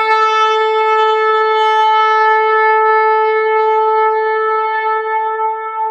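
A shofar sounding one long held blast, steady in pitch, beginning to fade near the end.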